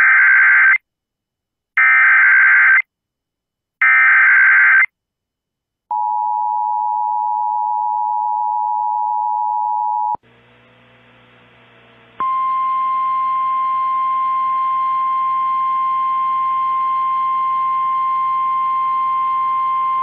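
Emergency Alert System activation on an FM station. Three short bursts of data header tones come first, then the two-tone attention signal for about four seconds. After a brief hiss, a single steady warning tone plays over radio static for about nine seconds, opening a relayed tornado warning.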